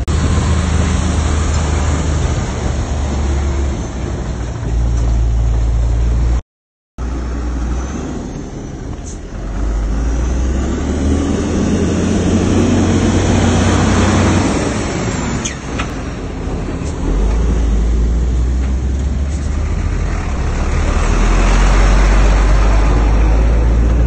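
Heavy diesel engine of large earthmoving machinery running hard, its pitch rising and falling as it works, with a brief break in the sound about a quarter of the way in.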